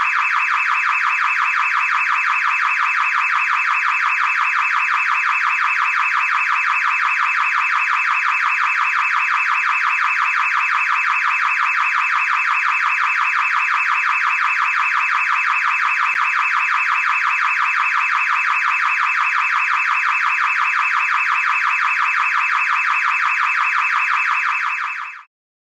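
Car alarm siren sounding continuously, a loud rapidly pulsing electronic tone that cuts off suddenly near the end.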